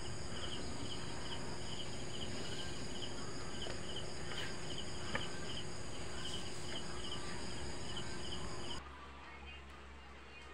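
Insect chirping in a steady rhythm of short, repeated pulses over a faint steady hum. Both cut off suddenly about nine seconds in, leaving only faint background noise.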